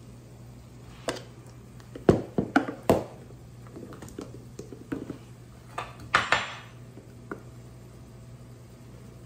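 A plastic measuring cup scooping flour from a plastic canister: several sharp knocks and clatters in the first three seconds, a few lighter taps, then a scrape about six seconds in, over a low steady hum.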